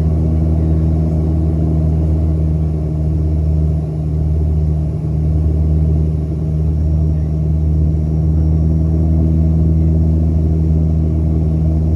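Steady low drone of a Bombardier Dash 8-300 twin turboprop's propellers and engines heard inside the passenger cabin, with a deep hum and a second, higher tone that hold steady, dipping slightly twice near the middle.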